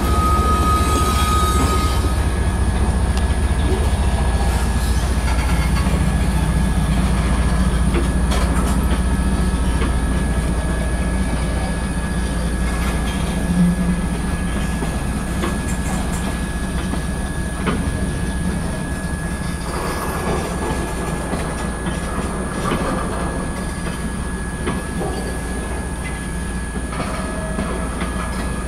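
Union Pacific manifest freight train rolling past. The low rumble of a mid-train diesel locomotive fades slowly as freight cars follow, clattering over the rail joints, with a thin steady squeal from the wheels.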